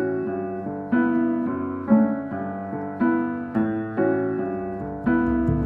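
Piano music, with notes and chords struck about twice a second and left to ring.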